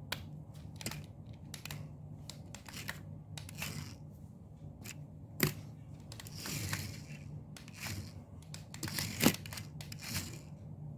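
Scattered light clicks and taps with brief whirring bursts from a coke-can-sized micro RC car being driven, with its remote's buttons being pressed.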